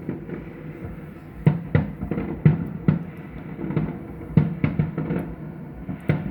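Fireworks bursting in an irregular string of dull, muffled booms, about a dozen in six seconds, with music playing underneath.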